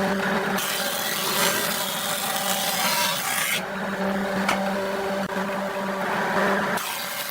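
Handheld power tool abrading wood: a steady motor hum while it spins free, and a rough rasping each time it bears on the wood, from about half a second in for three seconds and again near the end.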